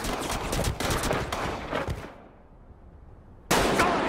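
Gunfire: many shots in quick succession, dying away about halfway through, then loud sound cutting back in abruptly near the end.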